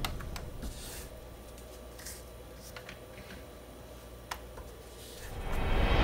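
Background music fades out, then faint clicks and rubbing of plastic toy blasters being handled, with one sharper click about four seconds in, before the music swells back near the end.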